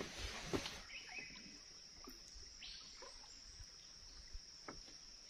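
Faint rainforest ambience: a steady high-pitched insect drone that sets in about a second in, with a few short bird chirps and faint clicks.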